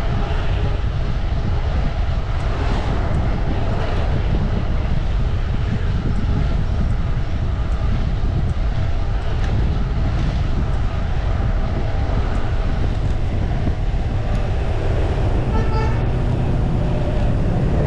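Steady wind rushing and buffeting over the microphone of a camera on a moving mountain bike, with a low rumble underneath. A short pitched sound cuts in briefly near the end.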